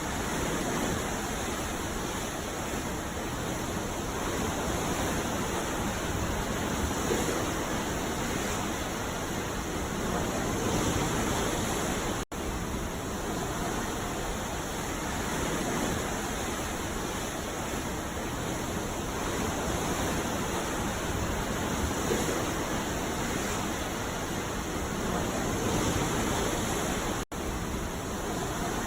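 Ocean waves breaking on a beach, a steady wash of surf that swells and eases gently. The sound cuts out for an instant twice, about twelve seconds in and near the end.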